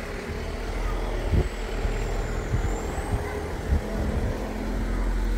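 Street traffic: a car driving past with a steady low engine and tyre rumble, and a few short low thumps.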